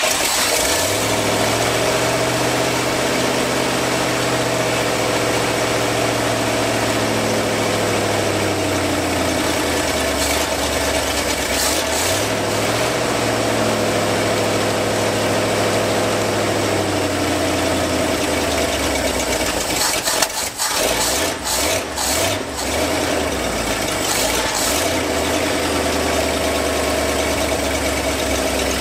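1968 Ford F-250's engine running rough after a fresh start, its speed rising and falling a few times as it is held on the throttle. About twenty seconds in it goes briefly unsteady, then settles into a lower, even run. It still won't idle properly, which the crew think might just be because it is cold.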